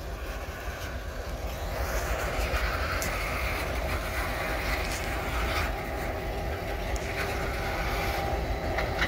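Pair of Northern Lines Railway diesel locomotives rumbling steadily as they roll slowly by with an autorack car, growing a little louder after the first couple of seconds.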